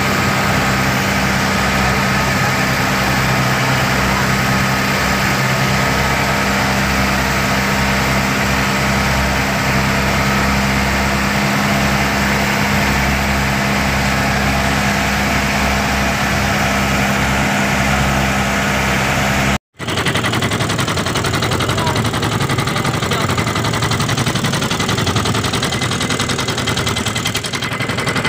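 Outrigger fishing boat's engine running steadily under way, with water rushing along the hull. About two-thirds of the way through, the sound breaks off for an instant and comes back as a rougher, rattling engine sound.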